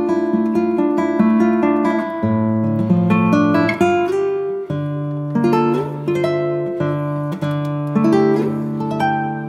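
Background music: an acoustic guitar playing a rhythmic run of plucked and strummed chords.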